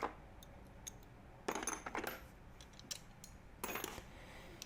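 Metal hand tools clinking and rattling as they are handled: scattered small clicks, with two short clattering spells about a second and a half and three and a half seconds in.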